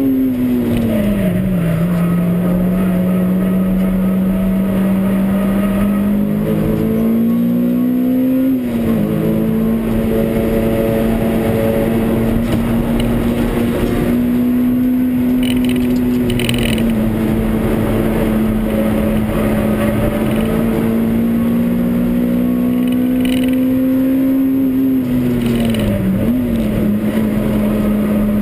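Honda Civic Type R (EP3)'s 2.0-litre four-cylinder i-VTEC engine pulling at high revs, heard inside the cabin over tyre and wind noise. The engine note drops sharply about a second in and again about nine seconds in, then climbs slowly; near the end it falls as the car brakes, with a quick blip of revs on a downshift.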